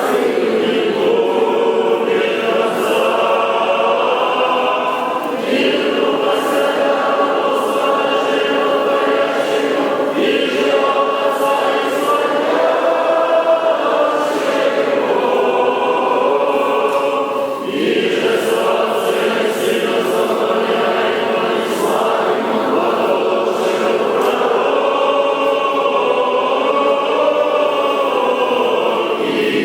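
Church choir singing Orthodox liturgical chant without instruments, in long held phrases with brief breaks between them.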